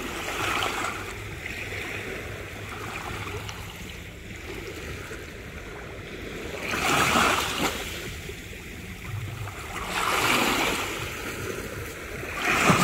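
Sea waves breaking and washing up the shore, coming in surges a few seconds apart, the loudest about seven seconds in, about ten seconds in and near the end.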